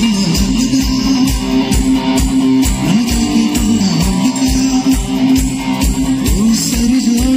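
Live band playing an instrumental passage, a guitar carrying the melody with bending notes over a steady drum beat and keyboards.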